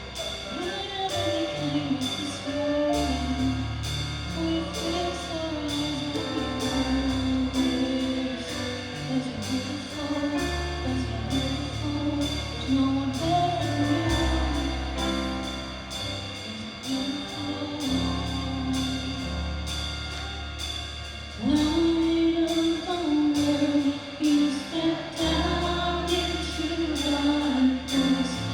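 Live worship music: a band with drums, bass and keyboard plays under sung vocals, growing fuller and louder about two-thirds of the way through.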